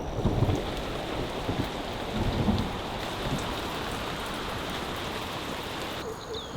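Steady rushing hiss with low rumbles, which cuts off sharply about six seconds in.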